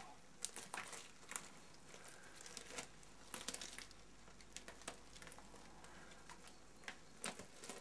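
Faint, irregular crackles and ticks of a flexible rubbery mould sheet being peeled up off a plastic plate, unsticking a little at a time.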